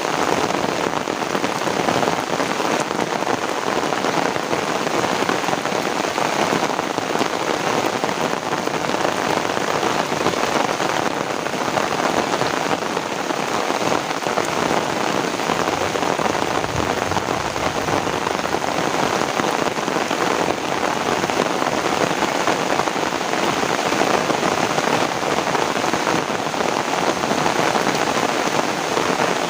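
Heavy rain falling steadily, a dense, even hiss of drops with no thunder.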